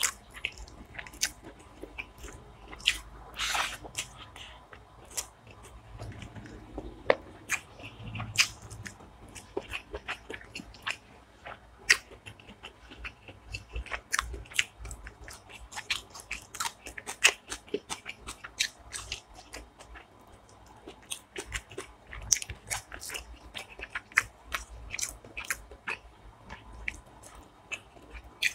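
A person eating chicken curry and rice by hand, close-miked: chewing and biting with many sharp, irregular clicks of the mouth and food.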